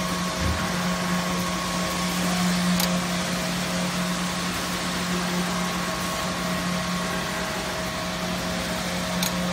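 Woodworking machinery running: a steady whirring hum with a constant low drone, and a couple of faint clicks, about three seconds in and near the end.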